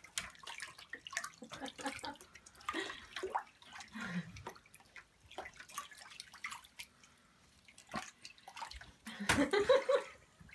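Wooden crib creaking and knocking as a toddler climbs over its rail, with rustling and short small vocal sounds. Near the end comes the loudest knock as she drops into the crib, followed by a brief vocal sound.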